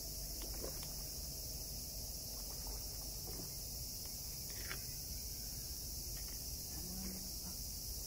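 Night insect chorus of crickets and katydids: a steady, high-pitched shrilling with no break, and a few faint soft ticks beneath it.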